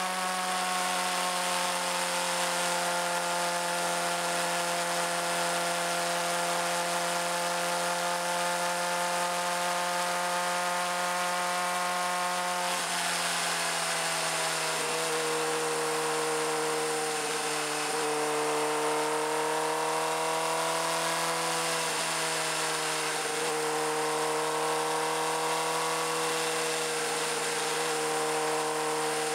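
Suzuki GSX-R600 inline-four engine running at steady cruising revs, heard from on the bike. Its pitch steps down suddenly about halfway through, then rises and dips a few times with the throttle.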